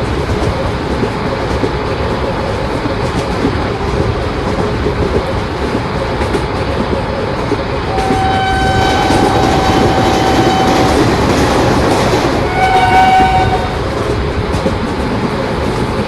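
Indian Railways train running on the track with a steady rumble of wheels on rails, its horn sounding twice: a long blast of about three seconds around the middle, then a shorter one a second and a half later.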